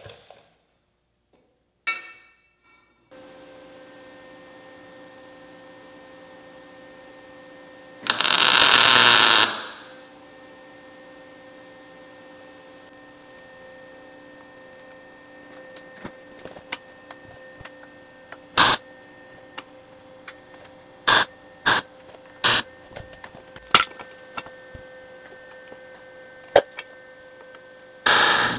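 Steady electrical hum in a workshop. Sharp metal clanks and knocks come now and then as steel bars are handled and fitted against the tractor's front frame. A loud rushing burst lasting over a second comes about a third of the way in.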